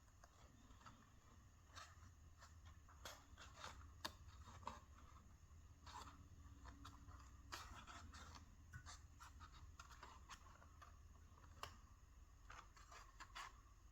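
Faint, irregular scratching and small clicks of a cotton bud being worked around the inner edge of a new foam speaker surround, tucking it under the speaker cone.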